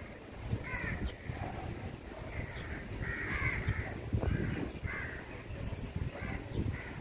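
Crows cawing outdoors: about six rough caws, one drawn out near the middle, over a low rumble.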